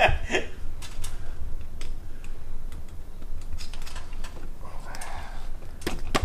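Light clicks and taps of hands fitting a steel awning mounting bracket to a roof rack, then a quick run of sharper clicks, about three a second, near the end. A low steady hum lies underneath.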